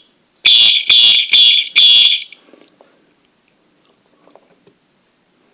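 Simplex fire alarm horn sounding four quick, loud, buzzy blasts in a code 44 pattern, then stopping a little over two seconds in.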